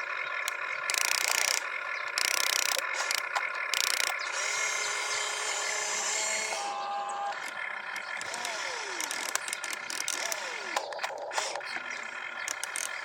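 Small electric gear motors of RC construction toys whirring, with clicking and rattling from their gearing. There are three short bursts of hiss in the first four seconds and two falling whines later on.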